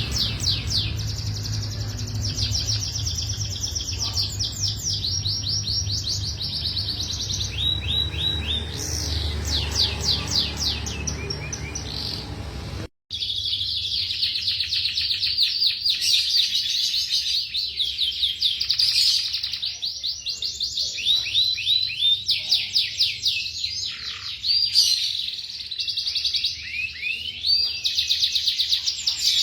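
Domestic canary singing continuously and vigorously, a long song of rapid trills and rolling phrases. The song breaks off for a moment about halfway through, then carries on from another recording.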